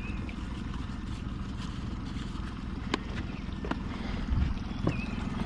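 Steady low rumble of an idling boat motor, with a few light knocks and clatters as life jackets are dug out from the boat.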